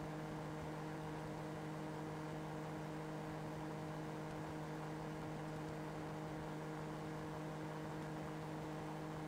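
A steady electrical hum: a low drone with a stack of even overtones over a constant hiss, unchanging throughout.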